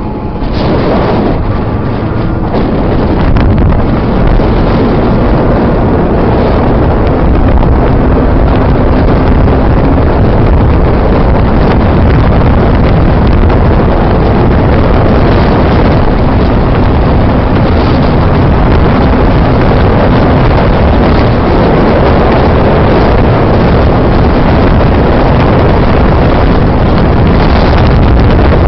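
Wind rushing over the microphone of a moving small motor vehicle, with its engine humming steadily underneath. It is a little quieter for the first couple of seconds, then runs on at a steady level.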